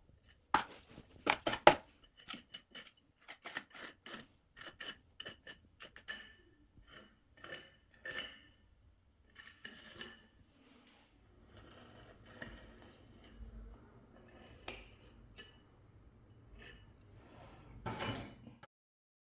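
Hand tools working at a socket box set in the wall: irregular light metallic clicks and clinks, busier in the first half, then softer scraping with a louder scrape near the end.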